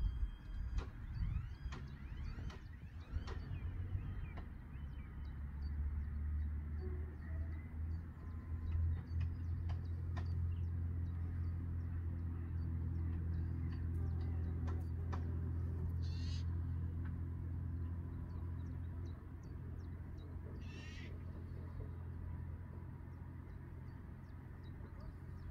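A bumblebee buzzing close by among the cornflowers: a steady low hum that swells about five seconds in and fades after about nineteen seconds.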